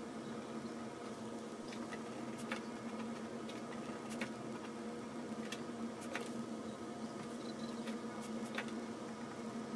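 Faint, irregular ticks and scratches of a 2B mechanical pencil sketching on cold-press watercolour paper, over a steady low hum.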